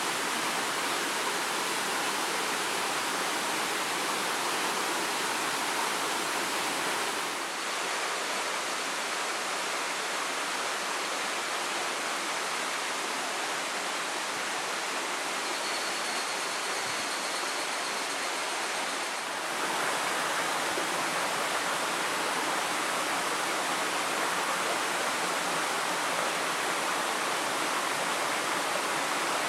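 Waterfall water rushing and splashing in a steady roar of noise. The sound shifts abruptly twice, about a quarter of the way in and again about two-thirds in.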